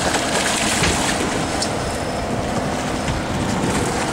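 Steady rumble of a sportfishing boat's engine with the wash of water against the hull.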